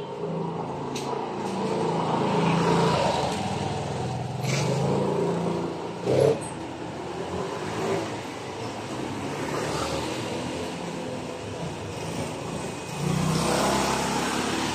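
Small motor scooters riding past at low speed, engines running; the loudest passes close by near the end. A brief knock sounds about six seconds in.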